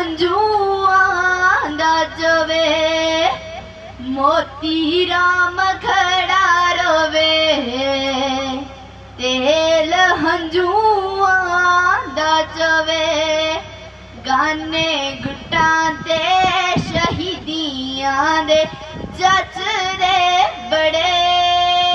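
A young woman singing kavishri, Punjabi sung poetry, as a single voice in long held phrases that glide between notes, with short pauses for breath between lines.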